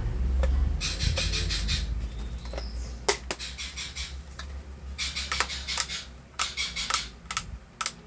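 Plastic clicks and rattles of a Gama hair dryer's housing being handled and snapped back together, in irregular clusters. A low rumble fills the first two seconds or so.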